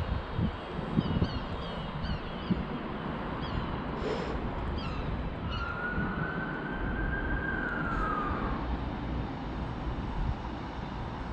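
Wind rumbling on the microphone, with a run of short, high, falling chirps over the first few seconds. From about the middle, a siren holds one long wailing tone for about three seconds, rising slightly and then falling away.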